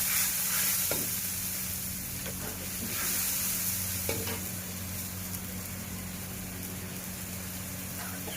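Food sizzling in a hot pan as it is stirred, with a couple of light knocks of the stirring utensil about a second in and again around four seconds. A steady low hum runs underneath.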